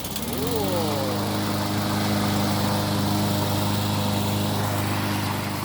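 Walk-behind gasoline lawnmower engine starting: it catches and revs up within about half a second, then settles into a steady run.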